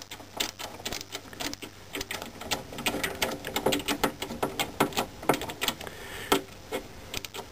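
Irregular metallic clicks and scrapes, several a second, of a flathead screwdriver working a screw out of the underside of an IBM 5251 keyboard's case.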